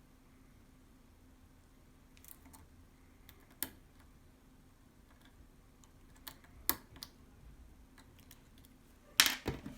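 Small, scattered clicks of a hook pick and tension wrench working the pins of a pin-tumbler lock, with a louder cluster of clicks and knocks near the end.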